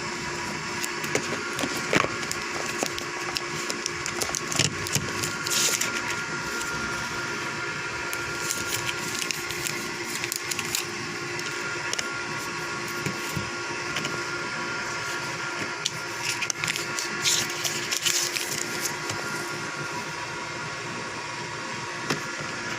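Box and packaging handled during a phone unboxing: scattered clicks, taps and rustling scrapes over a steady hum.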